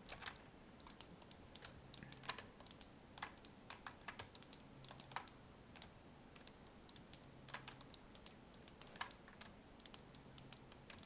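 Faint, irregular keystrokes on a computer keyboard as shortcut keys are tapped.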